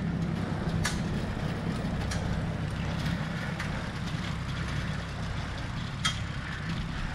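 Steady low rumble of travel along a paved road, with a few sharp clicks.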